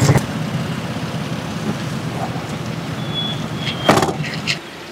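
A car engine running with a steady low rumble that cuts off suddenly near the end. A sharp knock at the start, two short high beeps, then a louder knock just before the rumble stops.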